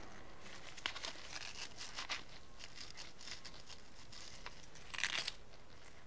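Sandpaper scraping lightly against the flattened end of a cut-off nail, faint scratchy rubbing with a few small clicks and a brief louder rasp about five seconds in.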